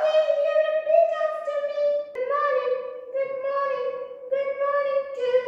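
A high-pitched voice singing long drawn-out notes, stepping down to a lower note about two seconds in.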